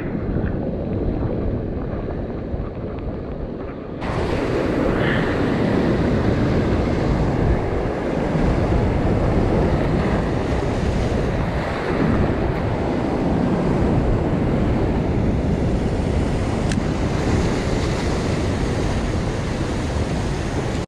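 Ocean surf breaking and washing over a rock ledge, with wind buffeting the microphone. The sound is a steady, loud rush. About four seconds in it suddenly turns brighter and fuller.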